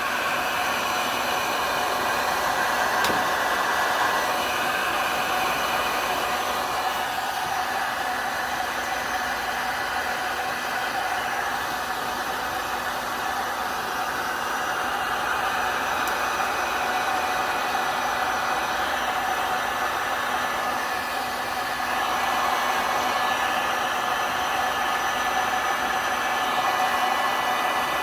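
Heat gun blowing steadily, a loud airy hiss with a faint motor whine, swelling and easing slightly as it is moved over alcohol ink on a tumbler.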